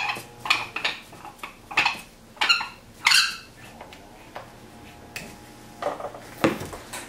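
Wooden blocks knocking against the plywood jaws and base of a home-made wooden clamp as they are set in and shifted, a string of separate, unevenly spaced knocks.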